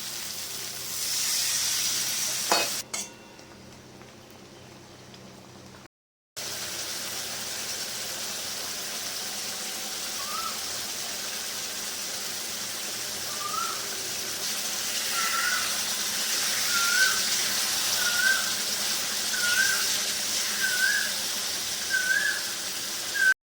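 Tangra fish curry sizzling and frying in a pan, the sound dropping out abruptly about three and six seconds in. Over the last half, a short rising chirp repeats about every second and a half.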